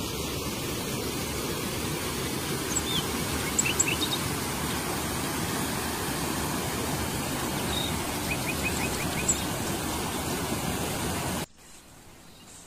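Steady rush of a stream flowing over rocks and small cascades, with a few short high bird chirps and a quick run of chirps in the middle. Near the end the water sound cuts off suddenly to much quieter background.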